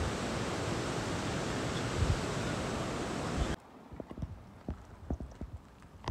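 Loud, steady rush of a mountain river over boulders, which cuts off abruptly about three and a half seconds in. Then come quieter footsteps on a wet car park surface, about two steps a second.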